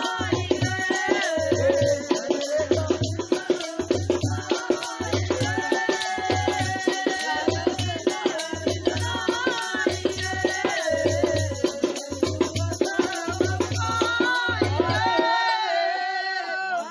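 Dogri folk song music: a low drum beat repeating about once a second under a constant shaken rattle, with a wavering melody on top. The drum drops out near the end while the melody goes on.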